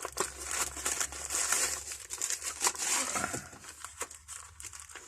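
Parcel wrapping crinkling and rustling in irregular bursts as it is pulled open by hand.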